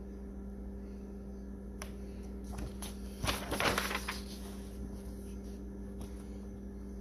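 A picture-book page being turned by hand: a brief paper rustle and flap about three seconds in, over a steady low hum.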